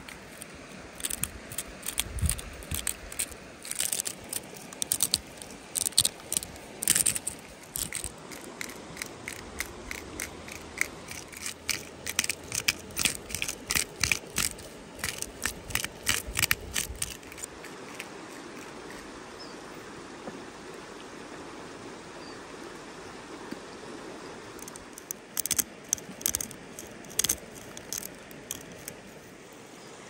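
Hand spice grinder being twisted over the meat: runs of quick gritty clicks through the first half and again briefly near the end, over a steady rush of a stream.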